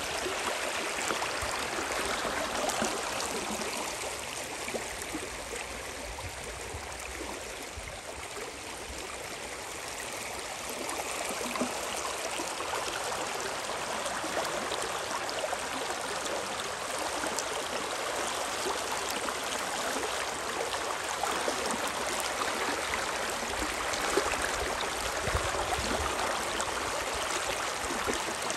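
River water rushing and gurgling in a steady wash, easing slightly for a few seconds about four seconds in, then picking up again.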